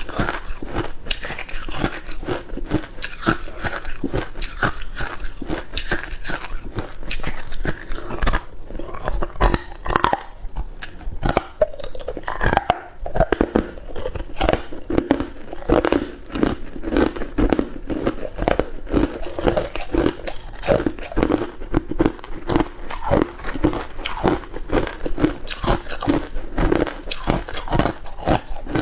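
A person biting and chewing ice, with many crunches in quick succession.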